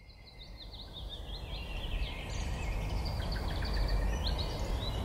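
Birds singing in quick chirps and warbles over a low rumbling background, fading in from silence over the first couple of seconds.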